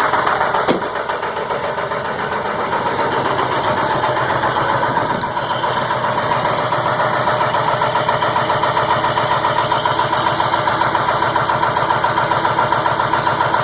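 2002 Ford F350's 7.3 Powerstroke V8 turbo-diesel idling steadily with an even, rapid pulse, seconds after finally catching on a hard cold start. There is a brief knock about a second in.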